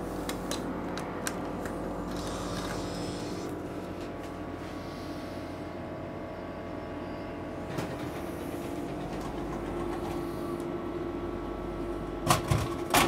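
Frozen-food vending machine at work: a steady hum from the machine, a few clicks at first as the banknote is taken in, then its delivery mechanism running for several seconds. A few loud clunks come near the end at the delivery flap, where the package is collected.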